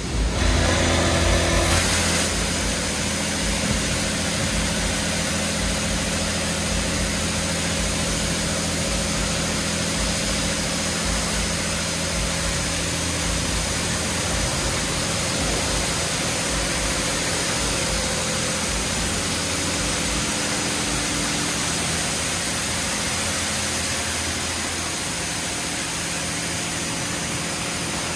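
Washworld Razor touchless car wash spraying high-pressure water over a car: a steady hiss of water jets over the low, even hum of the wash's pump motors. The spray comes on abruptly at the start.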